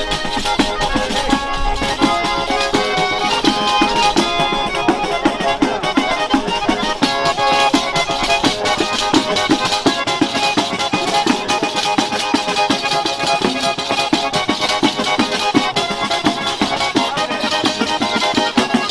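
Folk music played live on a diatonic button accordion (organetto), with several tambourines (frame drums with jingles) beating and jingling a fast, steady rhythm under the tune.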